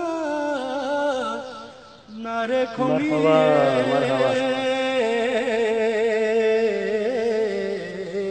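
A man singing a Balti qasida, holding long wavering notes. The first phrase fades out about two seconds in, and a new sung phrase starts right after.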